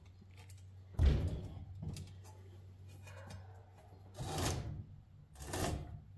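Steel pry bar clunking and scraping inside a cast electric motor housing as a stuck part is levered loose: one loud clunk about a second in, then a few quieter knocks and scrapes.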